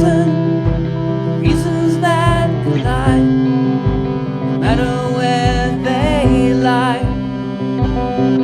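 Rock band recording in an instrumental passage: a lead guitar plays bent, wavering notes over a steady drum beat and bass.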